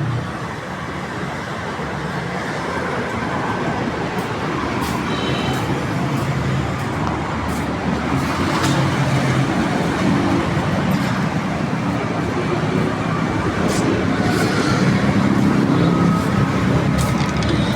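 Steady motor-vehicle and traffic noise, slowly getting louder, with a few faint clicks.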